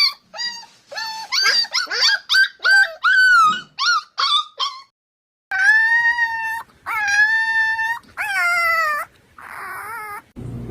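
Puppy yelping in a quick run of short, high cries, then whining in three longer, steadier cries of about a second each.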